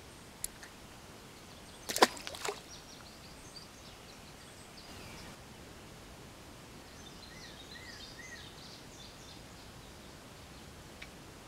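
A quiet outdoor background with a short cluster of sharp clicks or knocks about two seconds in. Faint high bird chirps come in the second half, including three short rise-and-fall notes near the end.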